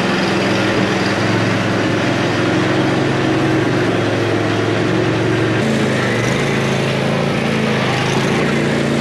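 Briggs & Stratton engine of a LawnBoss 6018 H riding mower running steadily on a test drive, its note shifting about halfway through.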